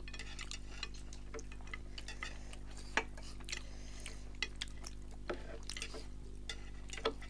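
Eating utensils clicking and tapping against a bowl or plate during a meal, scattered light clicks at irregular intervals with a little wet stirring.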